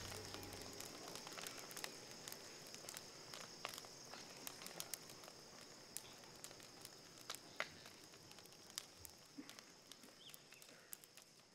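Bonfire crackling: sharp, irregular pops and snaps over a steady high hiss, growing fainter throughout.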